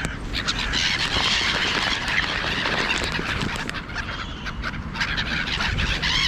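A flock of birds calling together, a dense steady chatter of many overlapping high calls.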